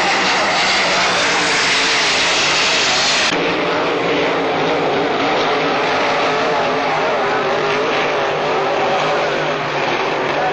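Racing hydroplane's engine running at full speed as the boat races past on the water: a loud, steady rushing roar with a wavering whine in it. The sound changes abruptly about three seconds in.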